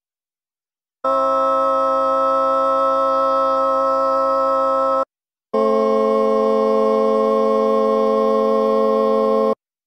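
Computer-synthesized chords voiced with a sampled singing voice, sounding organ-like: thirds and triads built on a neutral third of about 350 cents, halfway between major and minor, in the Georgian scale the researchers derived. Starting about a second in, two steady chords are held for about four seconds each with a short break between them, and a third chord begins at the very end.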